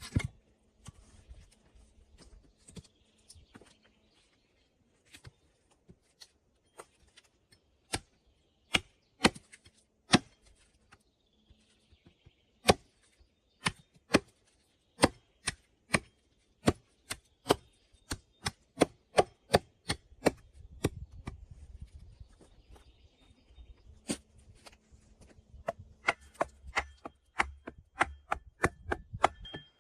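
A hand tool striking wood over and over: sharp separate blows, a few irregular ones at first, then a steady run of about two a second from roughly halfway through.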